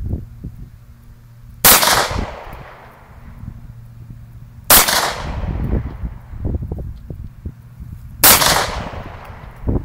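Three single pistol shots, about three seconds apart, each followed by a long fading echo.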